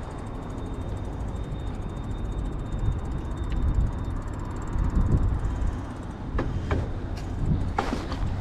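Bicycle riding over a paved path: wind buffeting the microphone over the rumble of the tyres, with a few sharp clicks near the end.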